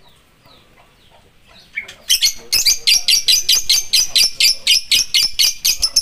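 A lovebird, quiet at first, breaks into a long, fast run of loud, shrill chirps about two seconds in, some five or six a second. This is the sustained chattering song that lovebird keepers prize as 'ngekek panjang'.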